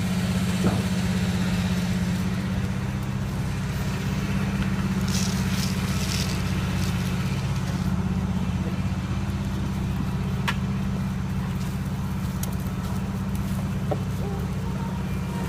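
Steady low droning hum that covers the sound track, with a few faint clicks; it is the sign of the recording's sound fault, which keeps the voice from being heard.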